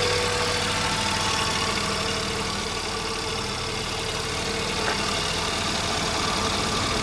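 Honda B18 four-cylinder engine idling with the electric radiator cooling fan running, the fan switched on by the newly fitted thermal fan switch as the engine reached temperature. A steady hum with a few constant tones.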